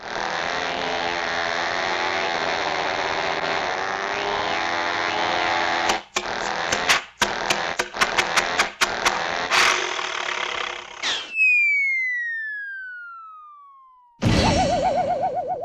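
A run of classic cartoon sound effects. A dense jumble of noise gives way to a quick series of sharp whacks, then a long falling whistle glides down for about three seconds and ends in a sudden crash with a wavering, wobbling tone.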